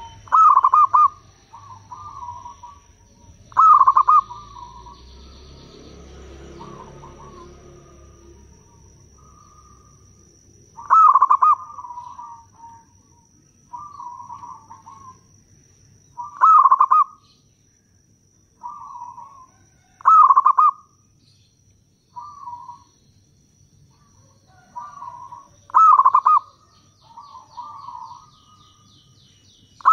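Zebra dove (perkutut) singing its cooing song: six loud phrases of quick stuttering coos a few seconds apart, with softer short coo phrases between them.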